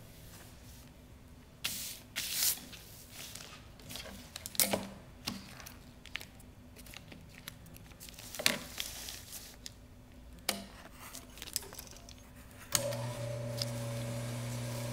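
Crinkly sheet fabric being rustled and handled, with a few sharp snips and clicks. About thirteen seconds in, the industrial sewing machine's motor is switched on and hums steadily.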